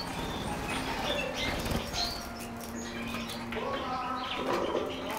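Small cage birds, canaries and other finches, fluttering their wings as they fly about, with short high chirps scattered throughout.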